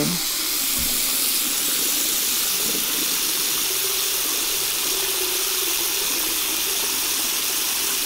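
Water running steadily in a bathroom: an even, unbroken hiss of flowing water.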